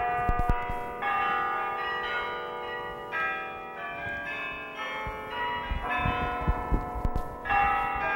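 Church bells pealing, with a new stroke every second or two and each one ringing on under the next. Low thuds sound beneath them.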